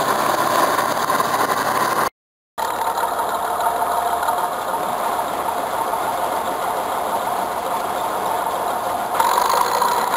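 Diesel engine of a Bizon Z056 combine harvester running steadily. The sound drops out for half a second about two seconds in and gets a little louder near the end.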